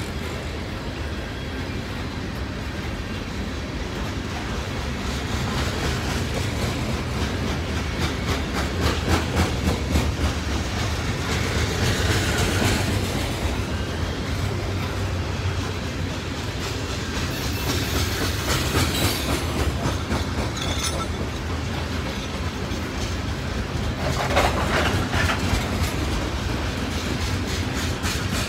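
Freight train of loaded-or-empty coal hopper cars rolling past, wheels clicking steadily over rail joints under a continuous rumble, with a brief high-pitched wheel squeal about two-thirds of the way through.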